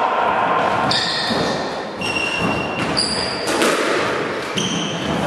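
Squash ball being hit in a rally: a series of sharp knocks off racket and walls, about one a second, several of them followed by a brief high ringing tone.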